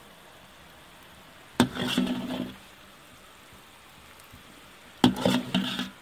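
A metal ladle scooping broth out of a large metal pot, twice. Each scoop opens with a sharp clank of the ladle on the pot and scrapes on for about a second.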